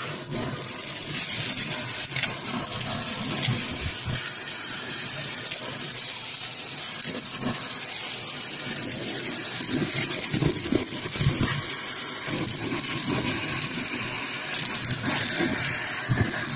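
Shark vacuum cleaner running with a steady rush of air while its nozzle sucks up fluff, popcorn kernels and small craft bits from carpet, with scattered clacks from hard bits pulled up the nozzle, more of them in the second half.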